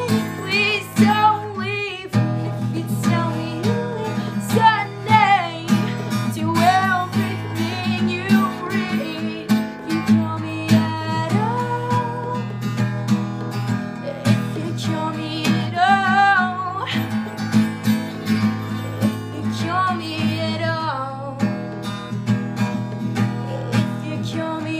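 A woman singing in phrases with vibrato over a steadily strummed acoustic guitar.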